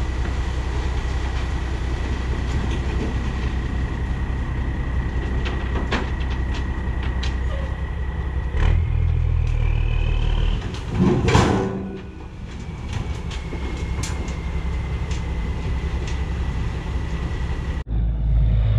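Dump truck's diesel engine running steadily while its raised bed tips out a load of clay, with a thin steady high whine over the rumble. About eleven seconds in there is a louder surge with a rush of noise, and the sound cuts off abruptly just before the end.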